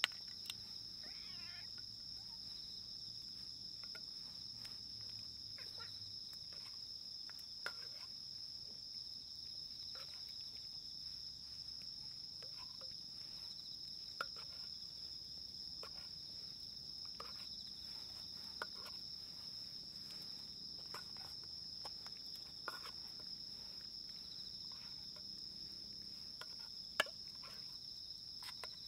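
Insects singing in a steady, high-pitched chorus, with scattered light clicks and taps and a short faint cat meow just after the start.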